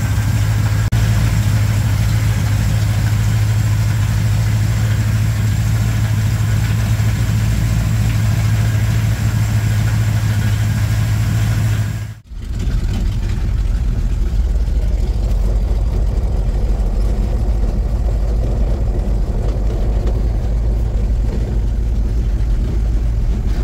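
1987 Chevrolet K10 pickup's engine idling steadily, running after its blown head gaskets were replaced. About halfway through it cuts to the deeper, steady drone of the truck driving, heard from inside the cab.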